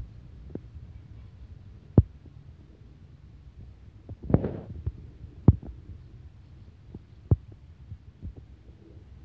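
Several dull, low thumps a second or two apart and a short rustle about four seconds in, over a low steady rumble.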